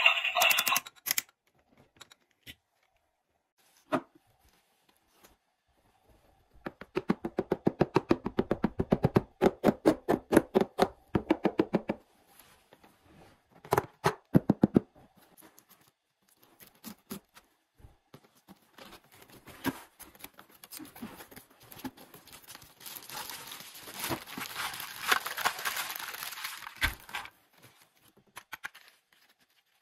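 Cardboard toy box being handled and opened: a few knocks, a dense run of rapid scratching strokes, then tearing and crinkling of packaging in the last several seconds.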